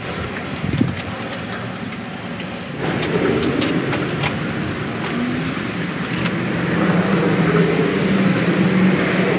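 Wind rushing across the microphone and a loose plastic tarp canopy flapping and crinkling on its PVC-pipe frame, getting louder about three seconds in, with scattered crackles of the sheet in the middle. A low steady hum joins in over the last few seconds.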